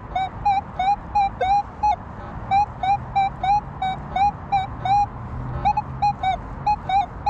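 Minelab Manticore metal detector giving repeated short target beeps, about three a second, each with a slight wobble in pitch, as the coil is swept back and forth over one target. The tone keeps coming back at the same spot rather than drifting, as a good non-iron target does in a bed of iron.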